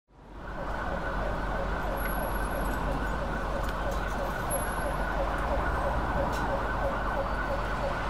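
City street noise with an emergency vehicle siren yelping in a rapid, repeating rise and fall. The sound fades in at the start.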